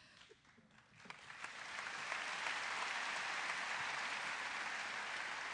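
Audience applause, starting about a second in and building quickly to steady clapping.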